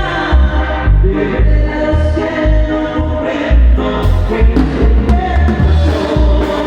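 Amplified live band playing Tierra Caliente music: a heavy bass line pulsing on a steady beat under sustained melody notes.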